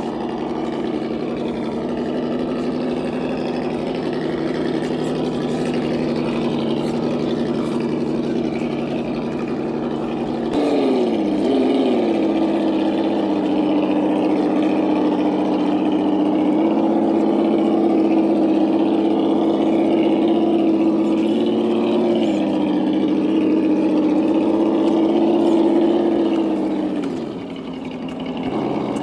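Electronic engine-sound kit in an RC Land Rover crawler playing a simulated engine through its speaker. It runs steadily, and its pitch climbs as the revs rise about a third of the way in, holds, steps down, then falls away near the end.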